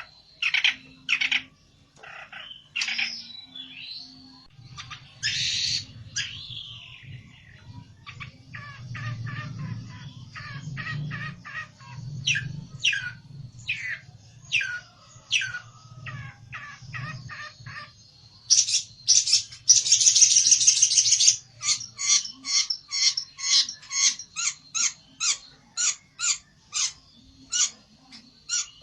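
Pelentet songbird calling agitatedly: scattered sharp chirps and short trills, a fast run of chirps, a harsh buzzy burst about two-thirds of the way in, then a quick string of sharp repeated notes, the aggressive calling of a bird challenging a rival. A faint low hum sits under the middle part.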